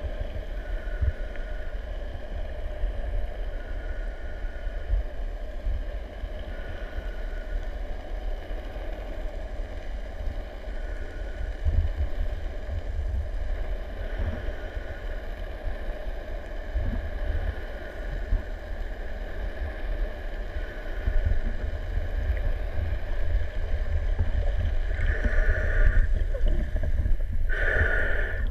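Muffled underwater sound through an action camera's housing: a low rumble of water moving over the case with a steady hum of a boat engine carried through the water. Near the end it grows louder, with splashing and bubbles as the camera comes up beside a snorkeler at the surface.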